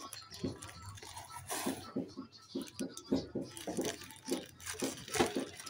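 Clear plastic wrap crinkling and rustling in quick, irregular crackles as a cylinder honing tool wrapped in it is handled and pulled out of its cardboard box.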